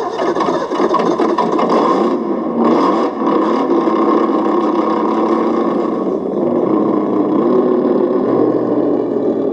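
Sense Innovations ESS-One Plus engine sound simulator on an RC crawler, playing a simulated engine running steadily through its small speaker, briefly louder about three seconds in.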